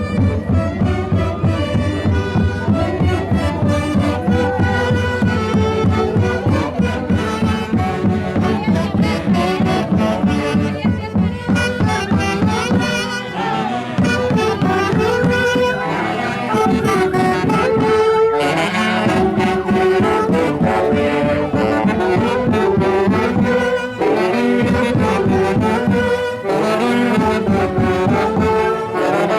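Dance-orchestra music with a brass section playing melody lines over a steady, pulsing beat; the low beat thins out about halfway through.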